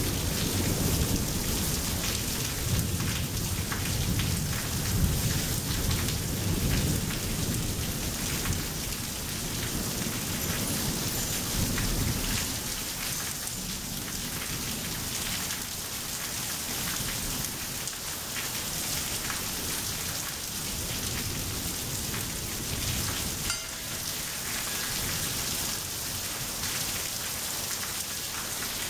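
Steady rain falling on the ground, with a low rolling rumble of thunder through the first twelve seconds or so that then fades, leaving the hiss of the rain.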